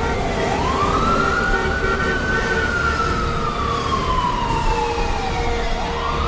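Siren wailing: one slow cycle that climbs quickly, falls slowly for about five seconds, then starts to climb again near the end.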